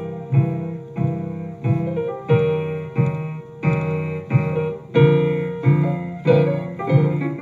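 Blues piano played solo in a live recording: chords struck on a steady beat, about three every two seconds, each ringing and fading before the next.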